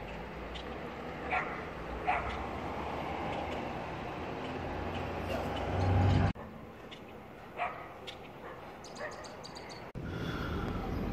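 A dog barking three short times, a few seconds apart, over a low rumble that swells and then cuts off suddenly about six seconds in.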